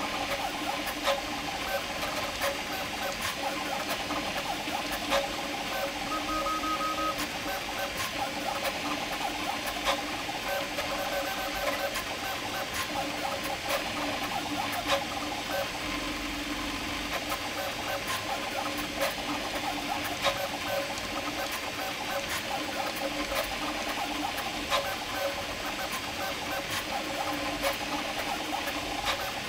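Prusa MK4 3D printer printing fast on input-shaping firmware: its stepper motors whir in several shifting tones as the print head moves, over a steady fan hiss, with occasional sharp ticks.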